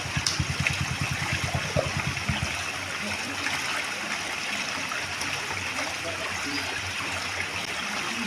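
Steady running water, like a stream flowing. For the first two and a half seconds a low, fast rhythmic throb runs over it and then stops.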